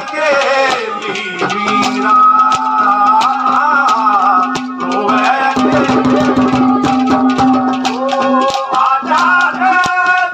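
Live Haryanvi ragni folk music: hand-drum beats and rattling percussion under a wavering melodic line over a steady held drone note.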